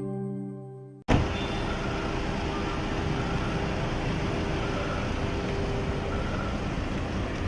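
Intro music fading out, then after a sudden cut a steady outdoor background din like road traffic, with a faint steady hum running through it.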